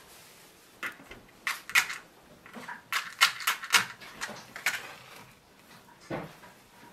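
Dry kindling sticks clicking and knocking as they are laid in a fireplace grate, a quick run of sharp taps and snaps. About six seconds in, a match is struck on its box and flares with a short rush.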